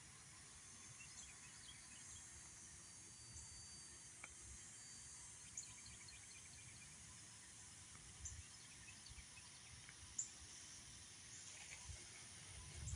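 Near silence: faint outdoor ambience with a steady high insect hiss and a few short, faint chirps every couple of seconds.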